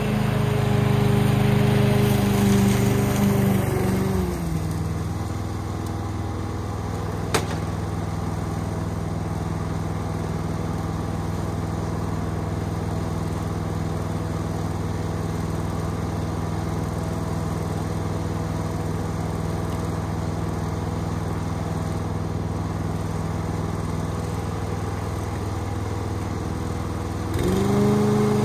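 Masport Contractor petrol push mower engine running at speed, then dropping about four seconds in to a lower, steady running note. A single sharp click comes a few seconds later, and the engine revs back up near the end.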